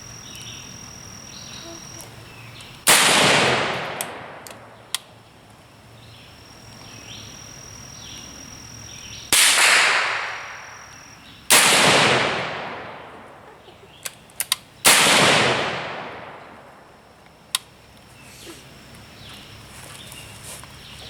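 Four slow, unevenly spaced shots from a Springfield Armory M1A .308 rifle. Each is loud and echoes away over about a second and a half, with a few faint clicks in between.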